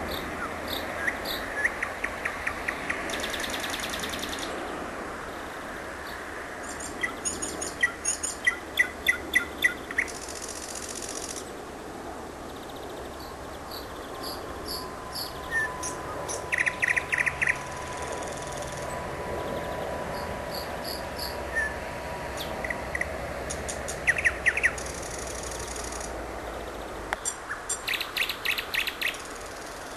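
Nightingale singing: short phrases of rapidly repeated loud notes, like quick rattling volleys, separated by pauses, over a steady background hiss.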